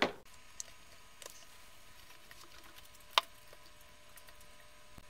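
Faint clicks and light taps from a wire and LiPo cells being handled on a ceramic tile during soldering, with one sharper click about three seconds in, over a faint steady hum.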